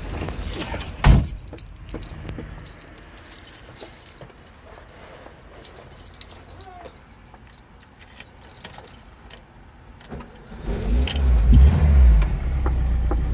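A sharp knock about a second in, like a car door shutting, followed by keys jangling and small clicks. Near the end a car engine starts and runs with a steady low rumble.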